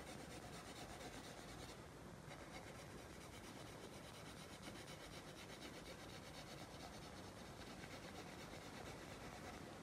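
Faint rasp of a pencil on drawing paper as tone is shaded in.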